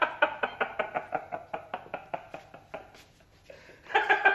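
A man's long staccato stage laugh, a pitched 'ha-ha-ha' at about five pulses a second. It trails off about three seconds in, then breaks out loudly again near the end.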